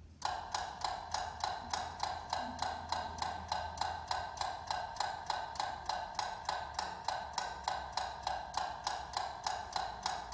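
Loud, even clock ticking, about four ticks a second, starting suddenly just after the start.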